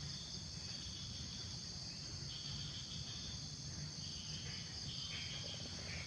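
Insects chirring in a steady high-pitched drone, with a second, lower insect voice dropping out and coming back several times, over a steady low rumble.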